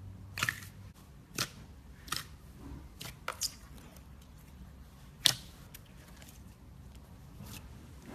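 Clear slime being handled, giving a scattering of sharp clicks and pops, about six in all, the loudest about five seconds in.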